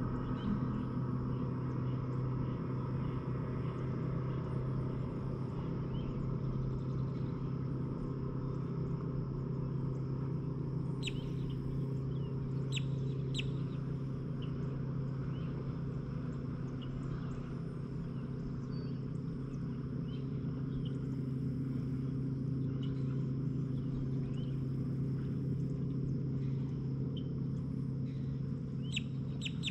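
A steady low mechanical hum, like a distant motor, with birds chirping now and then and a quick trill of bird notes at the very end.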